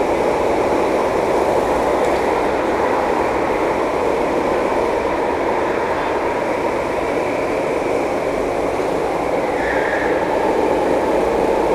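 Kart engines running in an indoor karting hall, a steady, dense din with no single engine standing out. A brief high-pitched squeal comes near the end.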